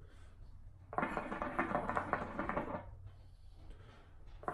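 Water bubbling in a hookah's glass base as smoke is drawn through the hose: one draw of about two seconds starting about a second in, over a steady low hum.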